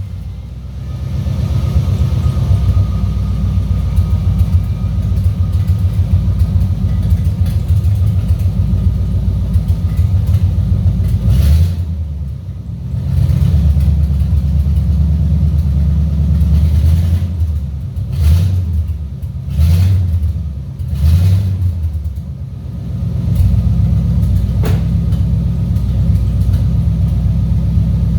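Pickup truck's engine running just after being started on freshly changed oil, a steady low rumble. The engine note dips and swells several times past the middle.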